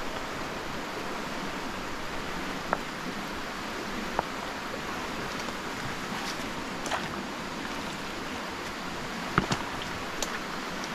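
Steady rushing of flowing stream water, with a few short sharp clicks and knocks scattered through; the loudest comes near the end.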